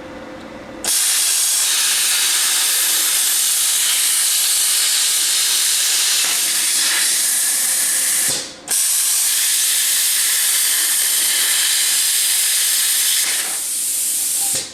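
Compressed-air tool running with a loud, steady hiss of air. About two-thirds of the way through it cuts out with a falling pitch as it spins down, then starts again at full hiss. It eases off just before the end.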